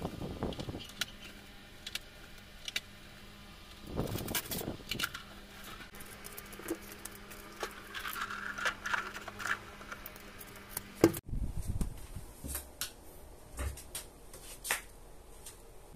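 Eggs and their tray being handled and set into a small fridge: light clicks and knocks of eggshells and plastic, over a faint steady hum that stops abruptly about eleven seconds in.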